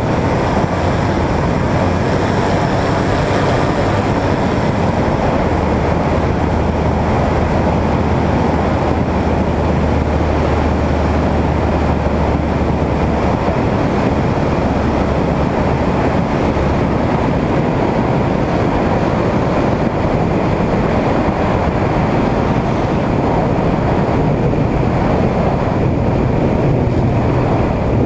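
Quicksilver ultralight's engine and pusher propeller running steadily in flight, mixed with rushing air on a wing-mounted microphone, with a low steady hum underneath for a stretch in the middle.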